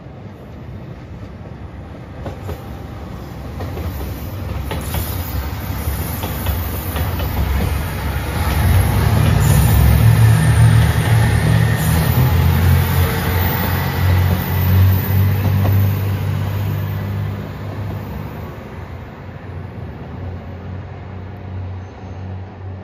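A JR Shikoku 2700 series diesel multiple unit, four cars, passing by: its diesel engines drone low, with a few wheel clicks over rail joints. The sound builds, is loudest about halfway through as the train goes past, then fades as it moves away.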